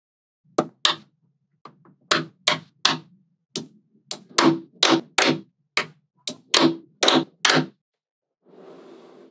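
Small metal magnetic balls snapping together as sections of balls are pressed onto a magnet-ball panel: about fifteen sharp clicks at uneven intervals, some close together in pairs, followed by a soft rustle near the end.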